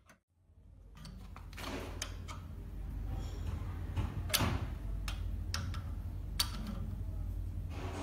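Small single-screw puffed-snack extruder running: a steady low motor and drive hum with a rapid fine ticking, rising over the first couple of seconds and then holding. A few sharper metal clicks come through about four and six seconds in.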